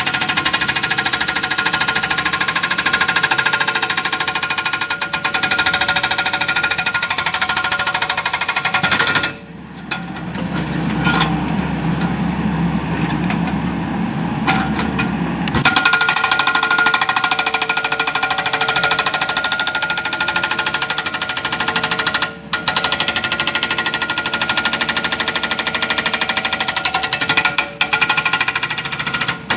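Excavator-mounted hydraulic breaker hammering rapidly on large rock. It stops about a third of the way in for several seconds, leaving the excavator's engine running, then starts hammering again, with two short pauses near the end.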